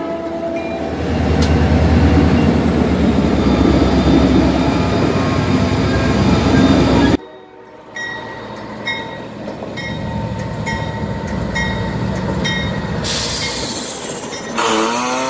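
RJ Corman diesel freight locomotives passing close by with a heavy, loud engine rumble, which cuts off suddenly about seven seconds in. A Norfolk Southern diesel locomotive then rolls through a grade crossing at a lower level, with the crossing bell ringing about twice a second. Near the end a rising tone comes in.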